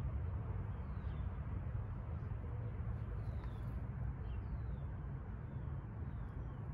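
Outdoor ambience: a steady low rumble with faint, scattered high bird chirps.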